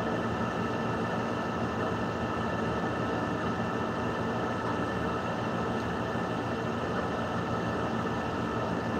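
Steady background hum with a few faint constant tones, unchanging throughout, with no distinct events.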